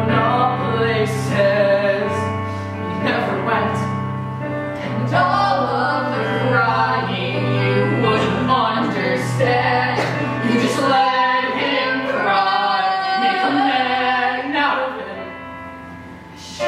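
Live stage-musical singing with instrumental accompaniment, the voices carried over long, sustained low notes. The music drops away near the end before swelling again.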